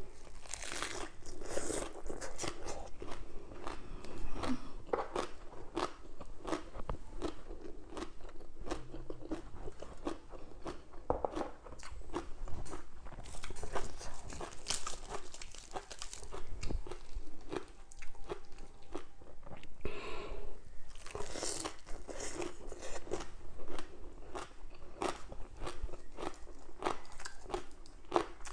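A person chewing and crunching crispy fried fish and fresh lettuce leaves, a continuous run of crunchy bites.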